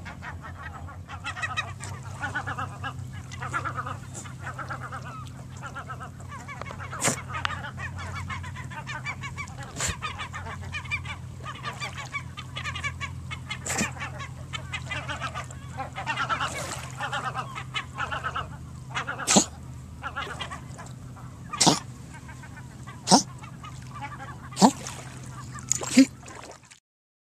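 Water birds calling over and over with honking calls, above a steady low rumble. In the last several seconds a handful of sharp, short, loud sounds stand out.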